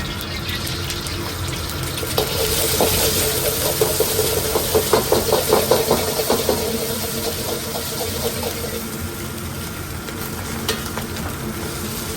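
Natto fried rice sizzling in a hot pan as it is stirred. In the middle comes a run of quick, evenly spaced knocks, about two to three a second, from the utensil striking the pan.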